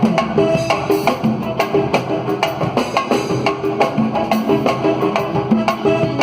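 Samba music played live on drums and hand percussion: a fast, even rhythm of sharp strikes with short pitched notes underneath.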